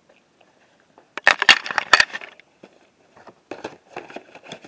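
Close handling noise: a burst of clattering and rustling from about a second in to just past two seconds, then softer scattered clicks near the end, as VHS tape cases and the camera are moved about.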